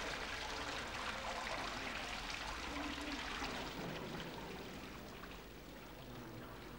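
Water splashing and trickling from a tiered courtyard fountain, a steady hiss that thins out somewhat after the middle.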